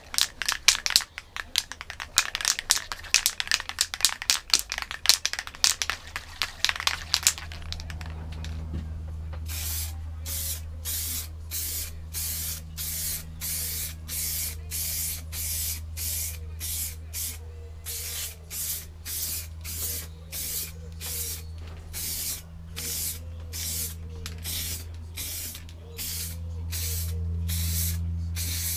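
Aerosol can of primer shaken hard for about seven seconds, its mixing ball rattling fast, then sprayed in short repeated hissing bursts, a little under two a second. A steady low hum runs under the spraying.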